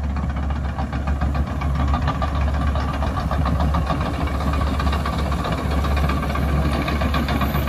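Cat D6K bulldozer's diesel engine running steadily while it grades dirt, with an even, rapid engine beat.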